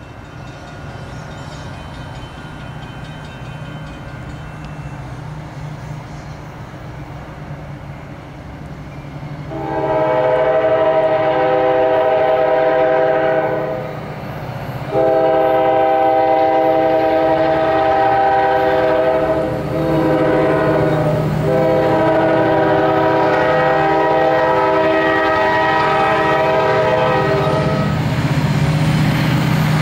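Norfolk Southern diesel locomotives, a GP60 leading an SD40-2, approaching with their engines rumbling louder, while the lead unit's multi-note air horn sounds the grade-crossing signal about a third of the way in: two long blasts, a short one, then a final long one.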